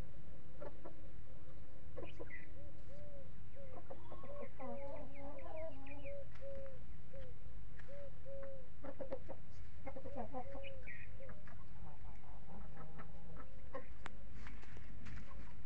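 Chickens clucking: a run of short, repeated clucks, about two a second, through the middle, with a few higher calls, over a steady low hum.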